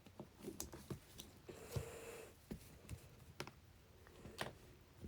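Faint, scattered clicks and light knocks, with a brief rustle about two seconds in.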